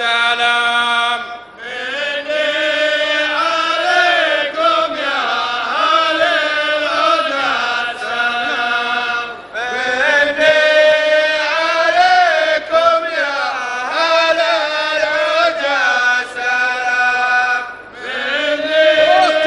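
A men's chorus of traditional Saudi performers chanting in unison in long sung phrases, with short breaks about a second and a half in, midway through and near the end.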